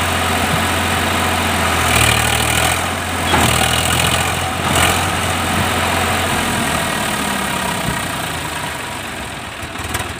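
Swaraj 744 FE tractor's three-cylinder diesel engine running steadily, with a few brief louder surges in the first half, then easing off slightly toward the end.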